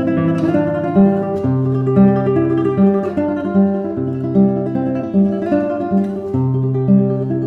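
Acoustic guitar music: plucked notes, about one a second, over a held bass line.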